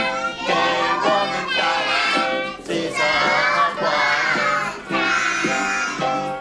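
A group of young children singing a song together, with electronic keyboard accompaniment.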